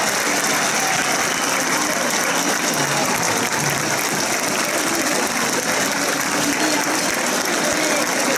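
Crowd applauding, a dense, steady crackle of many hands clapping.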